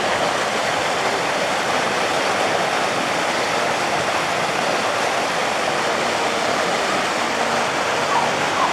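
Steady rush of water running down the hydroslides and pouring into the pool.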